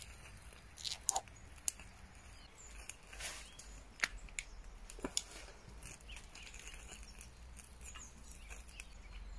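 Faint scattered clicks and light rustling of small solid-fuel tablets being handled by hand.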